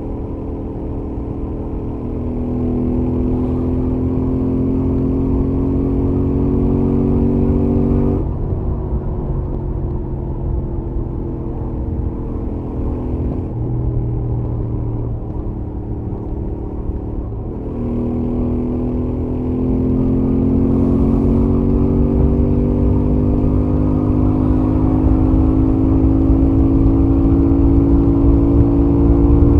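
Royal Enfield Interceptor 650 with its stock exhaust, the 648 cc parallel-twin engine pulling on a highway run. Its pitch climbs steadily under acceleration and drops suddenly at upshifts, about 8 s in and again around 18 s, then climbs again.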